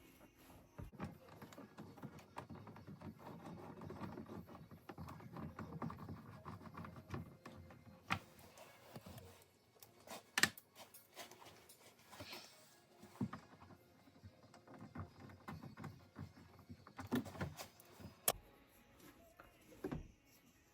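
Hand ratchet with a 7mm socket clicking in rapid runs as the door handle's bolts are driven in, with a few sharper knocks and clicks from the tools against the door.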